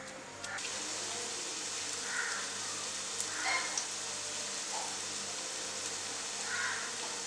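Cauliflower hash brown patty shallow-frying in oil in a nonstick pan: a steady sizzle that starts about half a second in.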